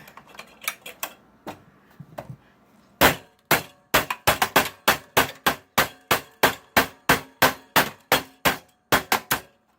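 Rapid hammer blows, about three a second, starting about three seconds in after a few light taps, forcing apart a computer part that a screwdriver could not reach.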